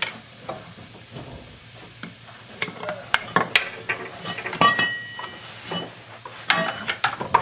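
Metal hand tools and parts clinking, clanking and scraping at irregular intervals while working the crankshaft dampener (harmonic balancer) off the engine, with a brief metallic ring about five seconds in.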